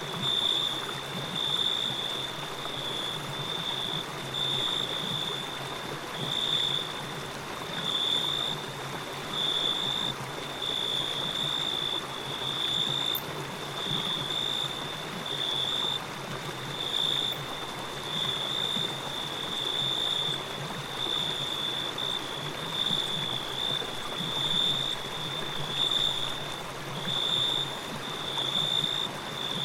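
Steady rush of a flowing stream, with a high-pitched tone over it that pulses on and off about once every one and a half to two seconds.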